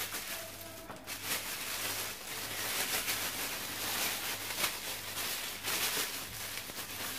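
Thin plastic wrapping crinkling and rustling in irregular bursts as a spatula is handled and pulled out of its plastic bag.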